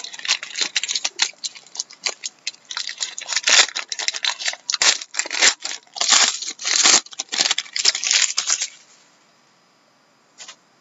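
Foil wrapper of a trading-card pack being torn open and crinkled by hand: a quick run of crinkling and tearing rustles that stops about nine seconds in, then one brief rustle near the end.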